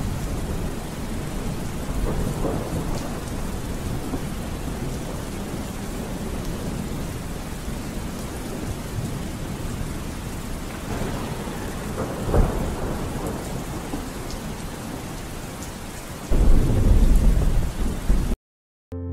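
Steady rain with low rolls of thunder; the loudest roll comes near the end, then everything cuts off suddenly.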